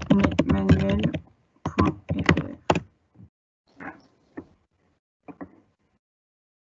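Typing on a computer keyboard: a quick run of keystrokes, then a few scattered taps that stop a little over five seconds in.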